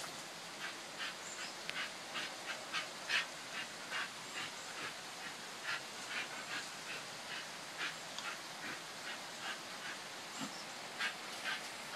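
A dog close by making short, repeated noisy sounds, about two or three a second at an uneven pace, over a steady hiss of rain.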